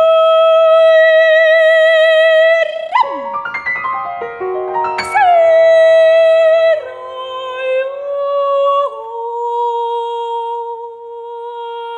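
Mezzo-soprano and piano in a contemporary art song: the voice holds a long note with vibrato, then swoops through pitch glides over struck piano notes. In the second half the music turns quieter, with steady held tones.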